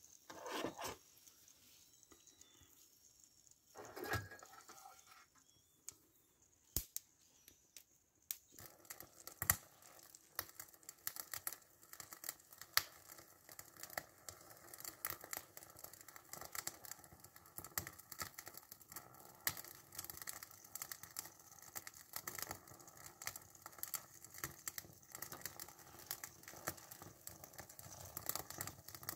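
Faint, continuous crackling and ticking from a small 08 Romeo toy steam engine's fire and boiler as a fresh fire heats it, starting about eight seconds in; a few soft knocks before that.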